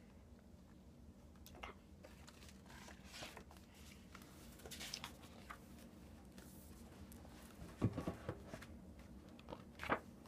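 Faint rustling and handling of a picture book's paper pages, with scattered small clicks and two short soft knocks near the end.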